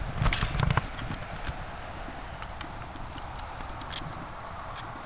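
Footsteps crunching in snow while walking up a slope: uneven steps, loudest in the first second, then softer.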